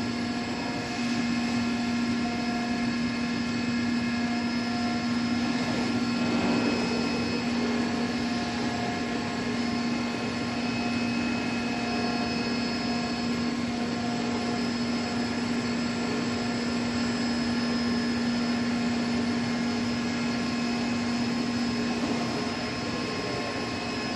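Digital flatbed cutting machine running as its head cuts a sheet on the felt bed: a steady machine drone with a low hum and several higher whining tones, and a brief rush of noise about six seconds in.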